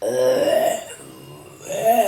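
Deliberate forced burps. A loud burp starts right at the start and lasts most of a second, and a second burp swells up near the end.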